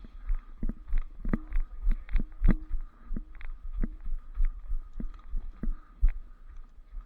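A rapid, irregular run of dull thumps and knocks over a steady low rumble.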